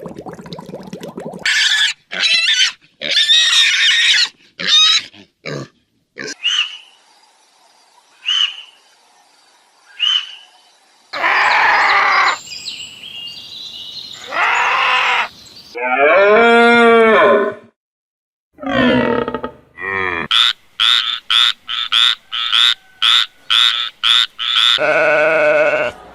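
A run of different animal calls, one short clip after another with brief gaps. They change in kind every few seconds, ending in a quick series of short, high calls.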